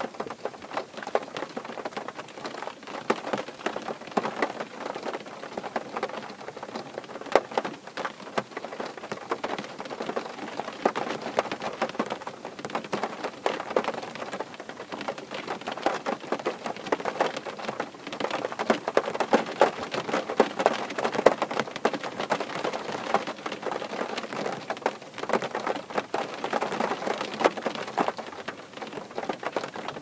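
Rain falling on a car's roof and windscreen, heard from inside the car: a dense, steady stream of drop hits with louder single drops scattered through it.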